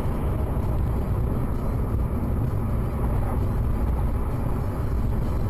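Steady low rumble of a car on the move, with no impact or other distinct event standing out.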